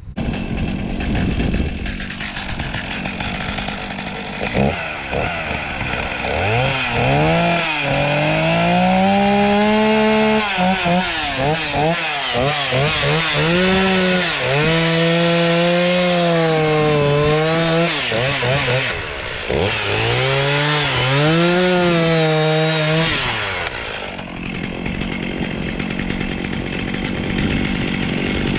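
Gas chainsaw bucking tamarack logs. It idles at first, then runs at full throttle through three long cuts, its pitch sagging under load in the wood, and drops back to idle for the last few seconds.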